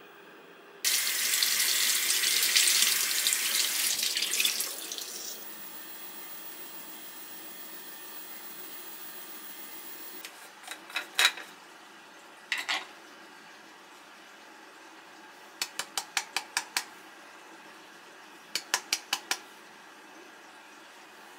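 A bathroom sink tap runs for about four seconds and is then shut off. Afterwards come a few light clicks and two quick runs of ticks as a plastic cosmetic jar and its lid are handled.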